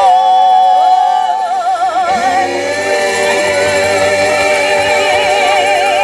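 Vocal quartet singing in harmony through microphones, holding long notes with vibrato.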